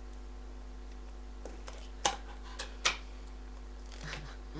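Scissors working at stiff plastic packaging: a few small clicks, then three sharp snaps about two to three seconds in, over a steady low hum.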